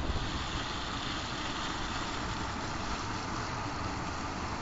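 Volkswagen Taigo driving at road speed: a steady rush of tyre and wind noise with no clear engine note.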